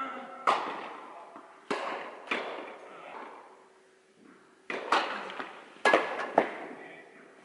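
Tennis rally: about seven sharp impacts of racket strikes on the ball and ball bounces, each echoing in a large indoor hall. The loudest come near the end.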